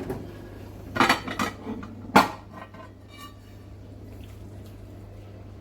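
A serving utensil scraping and clinking against a baking dish and plate as pasta bake is dished out. A few sharp clinks in the first two seconds, the loudest just over two seconds in, then a short ring, before it goes quiet.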